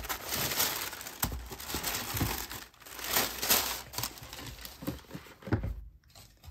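Tissue paper rustling and crinkling as a shoe is pulled out from its wrapping in a cardboard shoebox, with a few soft knocks and a low thump near the end as the shoe is set down.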